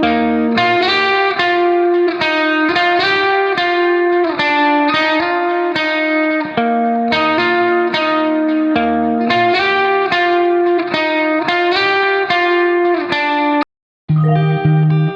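Background music: a plucked guitar melody in a steady rhythm. It breaks off for a moment near the end, and a lower-pitched passage follows.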